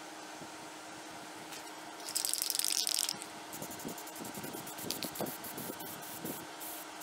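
Aerosol spray-paint can spraying red paint over a paper knife template on a steel blank: one long hiss about two seconds in, then a rapid run of short hisses.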